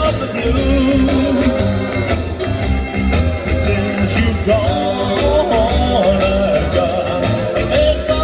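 Upbeat rock-and-roll-style song with guitar and a steady drum beat, played loud for line dancing.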